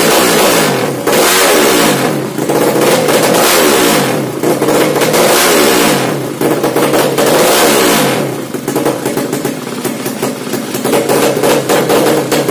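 Carbureted 200cc Yamaha Jupiter drag-bike engine revved hard through a new open racing exhaust. It goes in repeated throttle blips that rise and fall, and from about two-thirds of the way in there is a rougher stretch of rapid popping.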